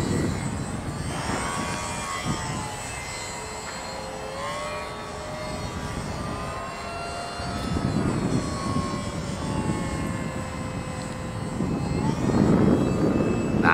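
ParkMaster radio-controlled model airplane's electric motor and propeller whining in flight, the pitch gliding up and down as the throttle changes, with louder rushing passes about eight and twelve seconds in.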